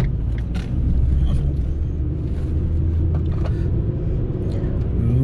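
Fiat Panda driving, its engine and road rumble heard from inside the cabin as a steady low drone, with a few short clicks.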